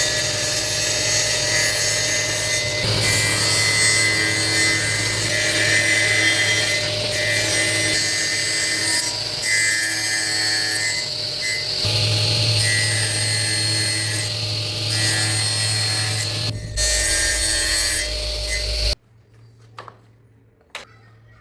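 A power tool cutting or working wood, its motor running steadily under a dense grinding noise that shifts in tone a few times, then stops abruptly near the end.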